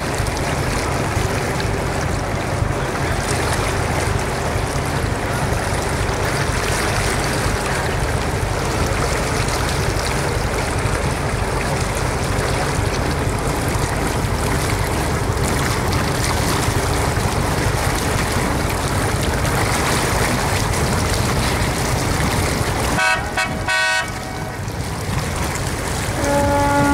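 Steady engine rumble with water and wind noise from the small boat the recording is made on, cruising across the harbour. A brief broken horn tooting comes about three quarters of the way through, and near the end a deep ship's horn starts a long steady blast.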